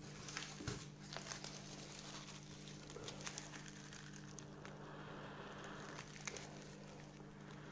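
Faint crinkling and crackling of dry birch bark and charcloth being handled in the fingers, with scattered sharp crackles, over a steady low hum.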